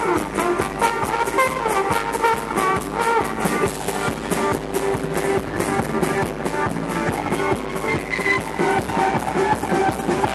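Live folk band playing an instrumental passage over a steady beat: fiddle, trumpet, acoustic guitar and upright double bass.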